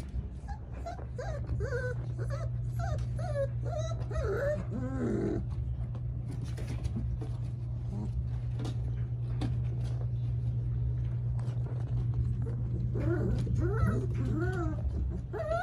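Four-week-old Central Asian Shepherd puppies whining and yipping in short, high, wavering squeaks, bunched in the first five seconds and again near the end, with light clicks and scuffs of paws on a blanket. A steady low hum runs underneath.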